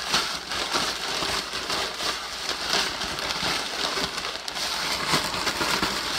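Clear plastic bag shaken hard, crinkling and rustling with a dense crackle of crushed Wheat Thins crumbs inside, as fish pieces are tossed to coat them in breading.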